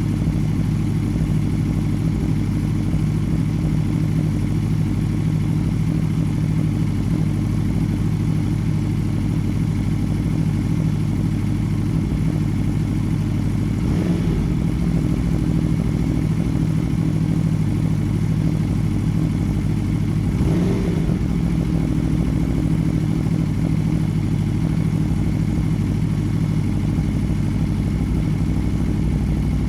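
Aprilia Tuono V4 R's V4 engine idling steadily through an SC Project GP2 slip-on exhaust.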